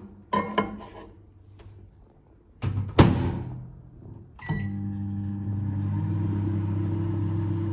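A few light knocks and one loud thump about three seconds in, then a click and a steady electrical appliance hum that starts about four and a half seconds in and runs on.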